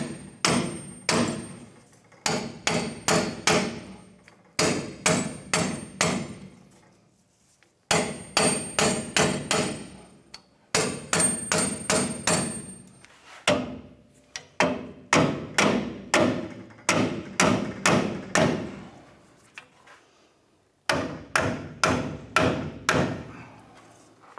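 Ball-peen hammer striking a steel bushing press tool and a rusted leaf-spring shackle bushing to drive the bushing out. The blows are sharp and metallic and come in quick bursts of several strikes with short pauses between, each ringing briefly.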